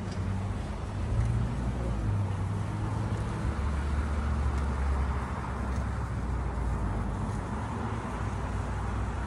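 Road traffic: a steady low rumble of vehicle engines and tyres, with the engine drone shifting in pitch as vehicles pass.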